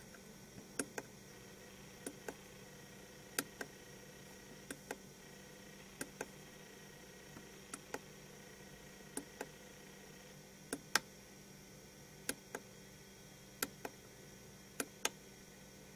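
Quiet room with a faint steady hum and a regular ticking: a pair of quick clicks roughly every one and a third seconds.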